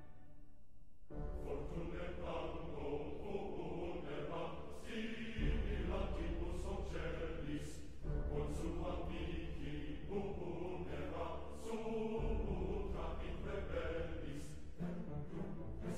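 Soundtrack music at a fairly quiet level: sustained, chant-like layered tones over a low pulsing bass, with a few sharp accent hits spaced every second or two.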